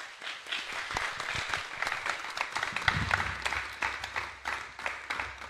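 Small audience applauding, with separate hand claps distinguishable.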